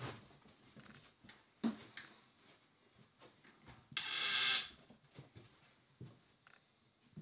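An LED video light panel and its stand being handled and adjusted: scattered knocks and clicks, a sharp knock just under two seconds in, and a loud scraping rasp lasting about half a second about four seconds in.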